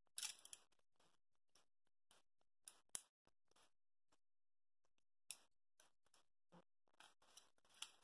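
Faint, scattered clicks and rustles of thin stripped cable conductors being handled and pushed into small push-in KNX connector terminals, with a few sharper clicks among them.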